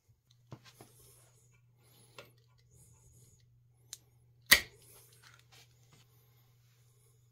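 Small metallic clicks of hand tools and parts being fitted to a bicycle's cantilever brake, with one sharp, much louder clack about four and a half seconds in. A low steady hum runs underneath.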